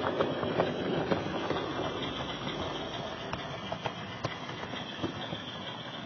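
Model railway train running along the track: a steady rumble with irregular sharp clicks of wheels over rail joints and pointwork, busiest in the first couple of seconds.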